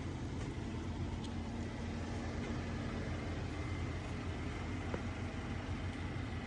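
Steady road and engine rumble inside a Toyota 4Runner driving along, with a couple of faint ticks.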